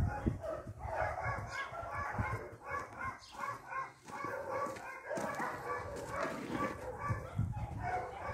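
Many short animal calls repeating one after another, over low thuds.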